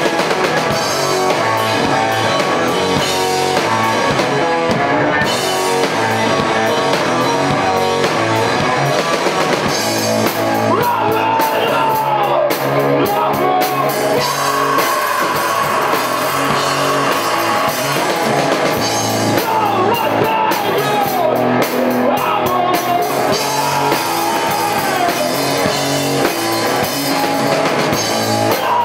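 Rock band playing live, with drum kit and guitars; from about ten seconds in a line slides and bends in pitch over the band.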